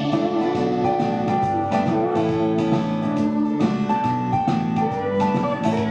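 Instrumental music with no singing: a melody of held notes over chords and a steady beat.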